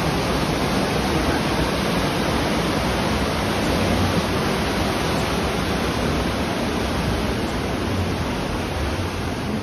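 Flowing river water, a steady even rush with no breaks.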